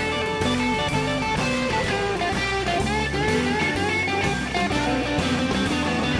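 Live blues band playing: an electric guitar lead with bent, sliding notes over steady bass notes and drums.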